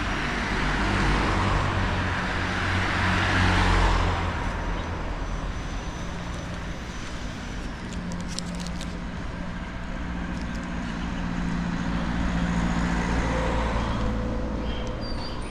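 Street traffic: a car passes close by, its noise swelling and fading over the first four seconds, then another vehicle's engine hums steadily in the middle of the stretch.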